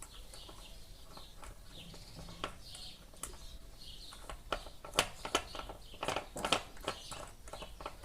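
Small metal parts and hand tools clicking and knocking as an electric fan motor's bearing cups and bushing are fitted together. The clicks come thicker and sharper in the second half, over faint bird chirps.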